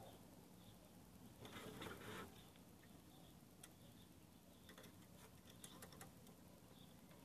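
Near silence with faint handling sounds of a screwdriver working on an Elgin sewing machine head: a brief rustle early, then a few small, sharp metal clicks.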